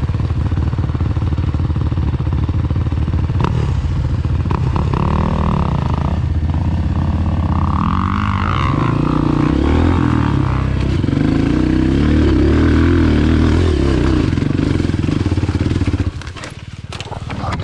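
Dirt bike engine running and revving, its pitch rising and falling as the throttle is worked on a climb, then dropping away suddenly about sixteen seconds in.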